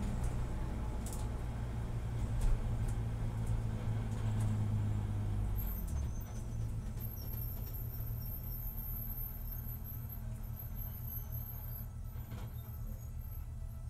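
Car engine running with a steady low drone that eases off about six seconds in.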